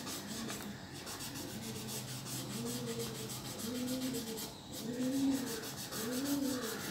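Cotton bud rubbing back and forth over graphite pencil shading on drawing paper to blend it, in short repeated strokes about once a second.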